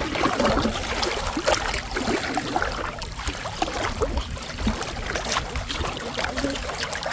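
Water splashing and trickling, broken by many small clicks and knocks.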